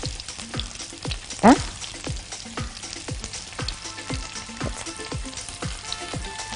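Vegetables (onion, carrot and garlic) sizzling in hot oil in a pan, a steady crackle. A brief louder squeak comes about one and a half seconds in.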